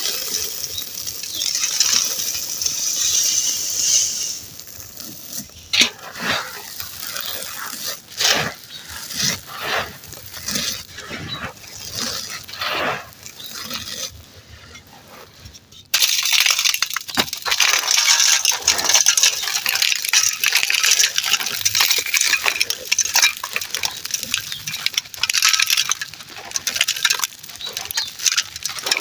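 Dry, gritty chunks being crushed and crumbled, with dense crunching at first, then separate sharp crackles, then dense crunching again from the middle on, starting suddenly.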